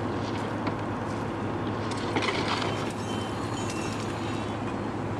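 Heavy machinery engine running steadily with a constant low hum, with a few faint knocks at uneven intervals.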